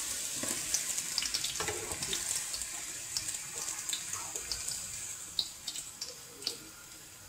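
Yufka gözleme frying in hot oil in a pan: a steady sizzle with scattered crackles and pops that eases off toward the end.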